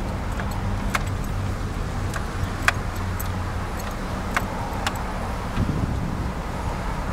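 Jeep Wrangler's engine running steadily, heard from inside the cab, with sharp clicks and rattles now and then; the loudest comes a little under three seconds in.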